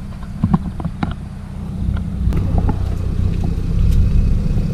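Car engine running as the car pulls away, getting louder about two seconds in, while it tows a rope tied to a shelter to drag the shelter down. Scattered short knocks and clicks sound over the engine.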